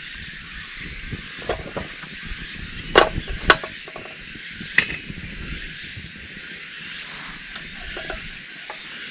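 Split wood sticks dropped into a stainless steel wood-gas camp stove as it is fed, making a few sharp knocks against the metal, the loudest two about three seconds in and another near five seconds. A steady hiss runs underneath.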